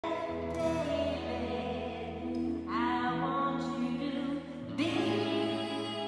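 Live band playing a song, with a voice singing long held notes over guitar and keyboard chords.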